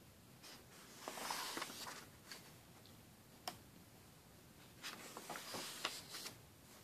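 Paper pages of a large book being turned by hand: two soft swishes, one about a second in and one near the end, with a single faint tick in between.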